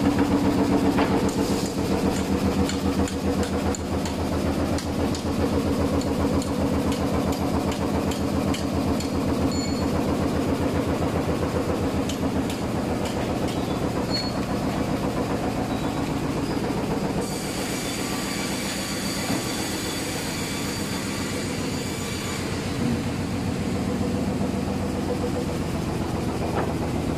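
A frame saw machine running and cutting pine square timber, its reciprocating blade frame making a fast, steady mechanical clatter. Other sawmill machinery runs with it, and a high-pitched whine joins in for several seconds past the middle.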